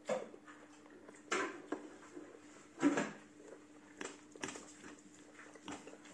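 Metal knife and fork clinking and scraping on a ceramic plate while hamburger steak is cut, in scattered short clinks about once a second. The loudest clink comes about three seconds in.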